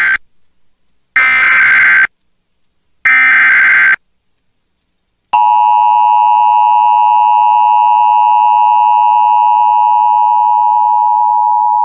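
Emergency Alert System broadcast: three short screeching SAME digital header bursts about a second apart, encoding a severe thunderstorm warning, then after a brief silence, about five seconds in, the steady two-tone EAS attention signal begins and holds.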